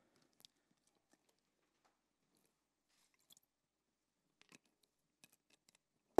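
Very quiet room with a few faint, scattered clicks and taps, the sound of small objects being handled at a table.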